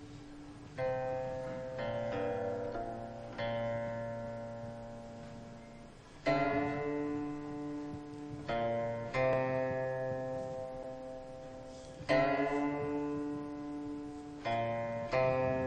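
Background music: a slow plucked-string instrumental, with notes and chords struck every second or two and left to ring and fade.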